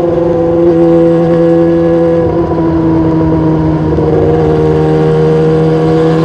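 Motorcycle engine running at a steady speed through a really noisy exhaust, its pitch shifting slightly about two and four seconds in.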